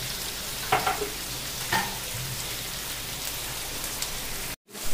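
Sausage pieces and onion frying in oil in a kadai: a steady sizzle, with the spices just added. The sound drops out for a moment near the end.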